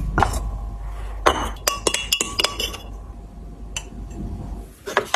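Glassware clinking: several light knocks with a short ring, bunched between about one and three seconds in, as the glass pot of a small electric stewing cooker and a glass cup with a spoon are handled. A low steady hum runs underneath and stops near the end.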